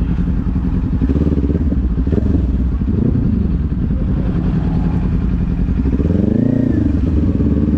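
Kawasaki sport bike's engine running at low speed as the bike rolls slowly, the engine note rising and falling briefly twice, near three seconds and again around six and a half seconds in.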